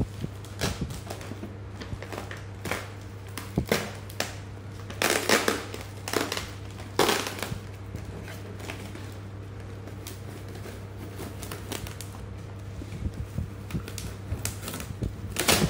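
Cardboard and plastic packaging being handled and crinkled, with scattered knocks and scuffs of the box against a tiled surface. Louder rustling comes about five, seven and fifteen seconds in, over a steady low hum.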